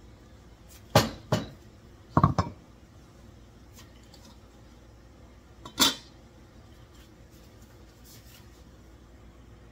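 Metal ladle and pot lid clanking against a metal cooking pot: two quick knocks about a second in, a short rattle of knocks just after two seconds, then one clank near six seconds as the lid goes onto the pot.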